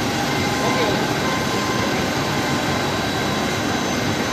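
Godrej heavy diesel forklift's engine running steadily, a dense even mechanical noise with a few faint steady tones in it.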